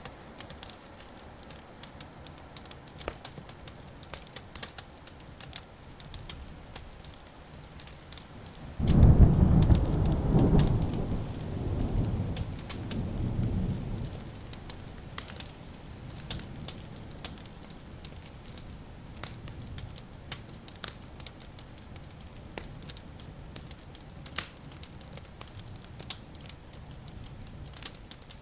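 Wood fire crackling with many small pops, and about a third of the way in a loud clap of thunder that rumbles low and rolls on in a few swells for several seconds before fading back under the fire.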